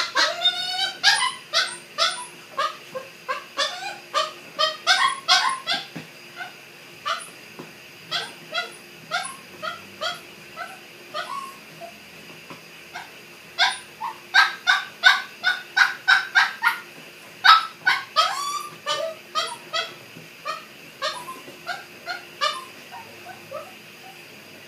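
Three-month-old dachshund–miniature pinscher mix puppy whining and yipping, a quick string of short high-pitched cries at about two a second. The cries thin out a little before halfway, then come thick and loud again.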